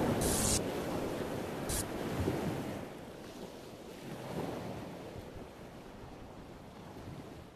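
Rushing ocean surf and wind, fading out gradually, with two short hissing bursts in the first two seconds.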